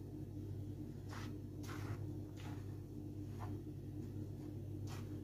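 Hands rubbing and turning toasted flour and ground seeds in a large qasriya bowl for sellou, making about five soft, short swishes over a steady low hum.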